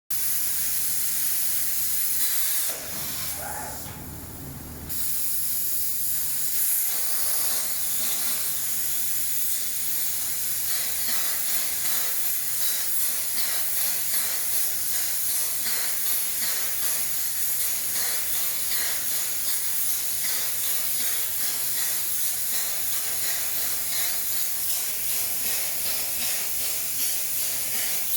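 CNC plasma cutter (SAF Plasmatome B 35) cutting metal, its arc and gas jet giving a steady, loud high-pitched hiss. The hiss drops away for a couple of seconds about three seconds in, then resumes and holds steady.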